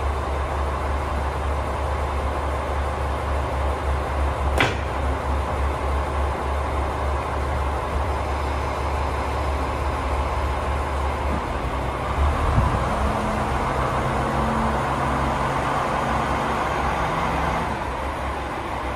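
KiHa 40 and KiHa 47 diesel railcars idling at a station platform, a steady low engine rumble. A single sharp clank comes about four and a half seconds in, and from about twelve seconds the engine note changes with some added low hum for several seconds.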